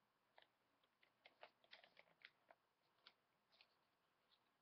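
Faint crinkling and rustling of a sheet of printer paper being handled and folded into a paper airplane, in scattered short crackles.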